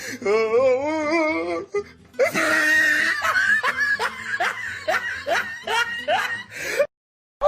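Meme sound clips: first a drawn-out voice with a wavering pitch, then a person laughing in a run of short rising bursts, about two a second, which cuts off abruptly near the end.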